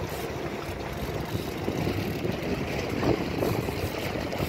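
Steady low rumble of a fishing boat's motor running at low speed, mixed with wind on the microphone, with faint voices about three seconds in.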